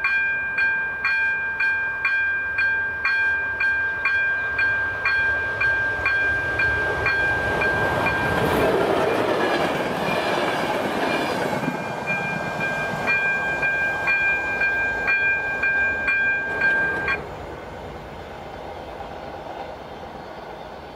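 Level-crossing warning bell ringing about once a second while a passenger train of coaches rushes past in the middle, its noise loudest for a few seconds. The bell cuts off suddenly a few seconds before the end, leaving only the fading train.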